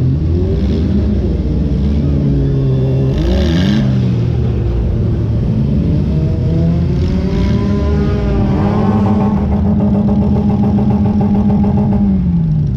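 A compact demolition-derby car's engine heard from inside the car, revving up and down, with a short burst of noise about three seconds in. From about eight seconds the engine is held at higher revs, then drops back near the end.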